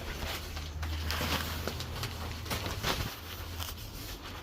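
Scratchy rustling and scraping from a chicken coop floor being cleaned out, with irregular strokes, over a steady low hum.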